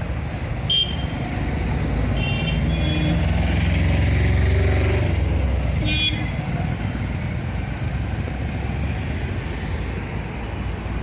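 Street traffic running past, with a vehicle's rumble swelling to its loudest around the middle. A few short vehicle horn toots sound about a second in, again two to three seconds in, and around six seconds in.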